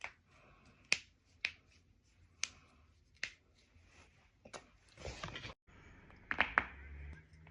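Joints cracking during chiropractic adjustments: a string of short sharp pops, roughly one every half second to second. A brief rustling scuffle comes about five seconds in, then a louder pair of cracks in quick succession.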